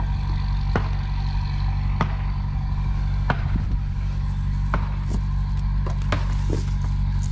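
A steady low mechanical drone with a faint steady tone above it. Sharp clicks come through it at regular intervals, a little more than a second apart.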